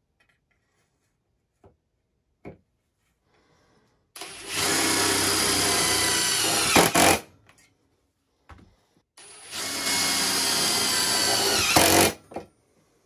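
Cordless impact driver driving screws in two runs of about three seconds each. Its pitch drops near the end of each run as the screw seats, then it stops.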